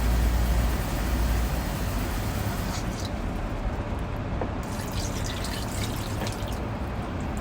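Water running steadily from a sink faucet as it is collected for rinsing laundry.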